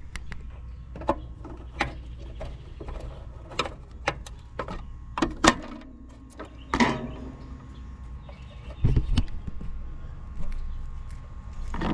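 Hand tools and crimp wire connectors being handled: irregular clicks, taps and light rattles, the sharpest about five and a half and seven seconds in, over a steady low hum.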